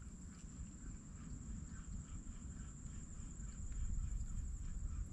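Faint low rumble of wind on the microphone, with soft, fairly regular ticking that gets a little louder about four seconds in.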